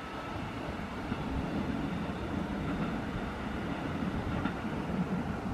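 Sanyo Electric Railway 5000 series electric train running away into the distance: a steady low rumble of its wheels on the rails.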